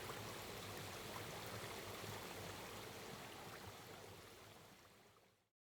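Faint, steady rushing background noise with no distinct events. It gradually fades out and ends in complete silence about five seconds in.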